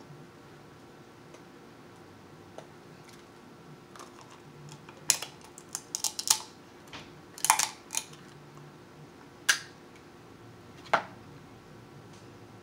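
Close-up eating of cooked crab legs: irregular sharp clicks and snaps from the shells being picked apart and from the mouth, clustered between about five and eight seconds in, with single louder snaps near nine and a half and eleven seconds.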